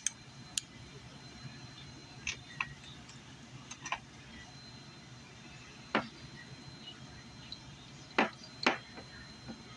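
Scattered light clicks and metallic clinks from a socket set's ratchets and sockets being handled, about eight separate knocks, the strongest about six seconds in and twice near the end.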